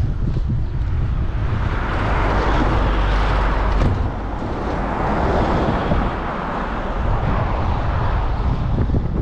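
Wind rumbling on the microphone, with a broad rushing noise that swells and fades, then swells again near the end.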